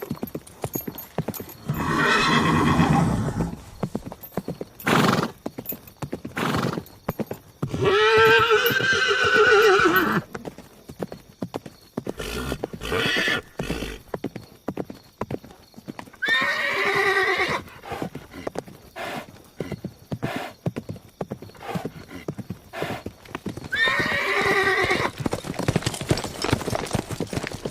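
Horse whinnying four times, each call about a second and a half to two seconds long, with hooves clip-clopping in a running series of sharp knocks between and under the calls.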